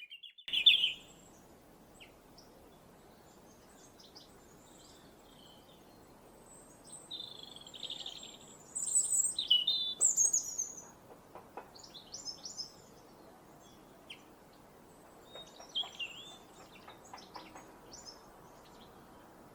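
Robin singing: short, high, varied warbling phrases with pauses between them, the loudest about nine to ten seconds in.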